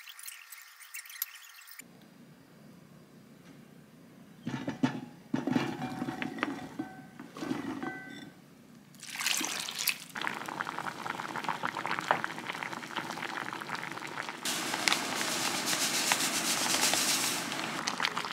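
Water poured from a bowl into a pot of peeled chestnuts, splashing in a steady rush, with knocks and clatter of the pot and utensils before it.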